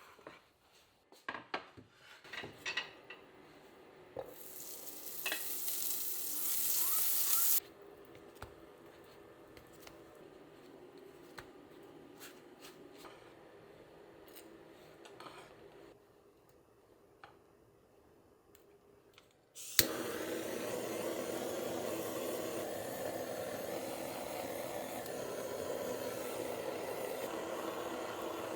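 Kitchen cooking sounds: small clicks and clatter of utensils, then a loud hiss that builds for a few seconds and cuts off suddenly. A sharp click about two-thirds in is followed by a steady hiss.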